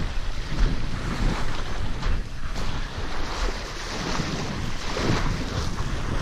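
Wind buffeting the microphone over small waves washing onto a pebbly beach, coming in uneven gusts.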